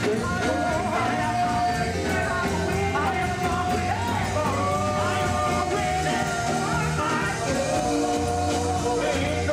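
Live gospel music: a choir singing held, wavering lines over a band with a steady, prominent bass.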